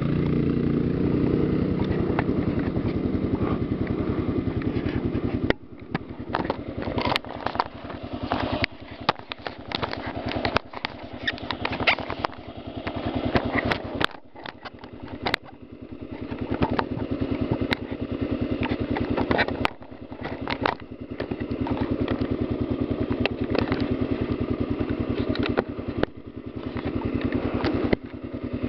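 Kawasaki KLR's single-cylinder engine running as the motorcycle rides a rocky dirt trail: steady for about the first five seconds, then repeatedly easing off and picking up again with the throttle. Frequent knocks and rattles from the bike going over loose stones sound through it.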